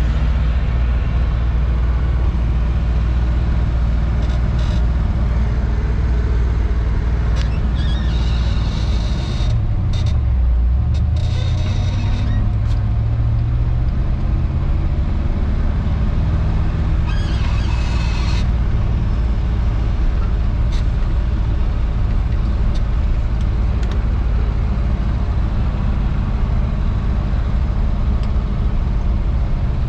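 Old four-wheel-drive pickup truck driving in town traffic, heard from inside the cab: a steady low engine and road rumble, with the engine note dropping and then climbing again about a third of the way in as the truck slows and picks up speed. Short hisses come a little before that and again just past the middle.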